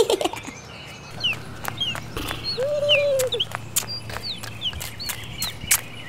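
Farmyard ambience: small birds chirping in short, repeated notes, with one longer, lower call about halfway through and scattered light clicks.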